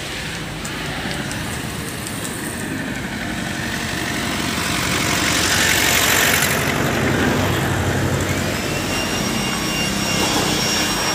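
Handheld electric air blower running: a steady rushing of air that swells toward the middle, with a high motor whine rising in about eight seconds in.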